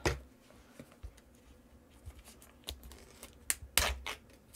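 Clear plastic shrink-wrap on a tarot deck box being torn open and crinkled: scattered sharp crackles and clicks, the loudest a little before the end.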